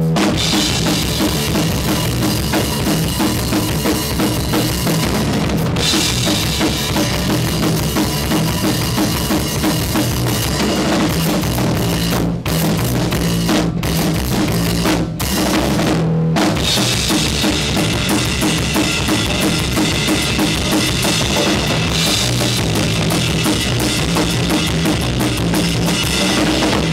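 Punk rock rhythm section of drum kit and electric bass playing a song together, with kick drum and cymbals, and a few short breaks about halfway through.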